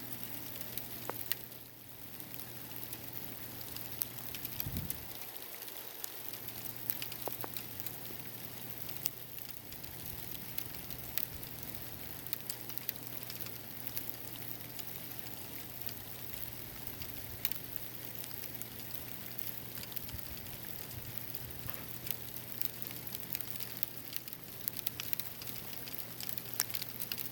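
Sleet pellets pattering and ticking on a roof: a steady hiss of small impacts with many sharp individual ticks. A faint steady low hum runs underneath.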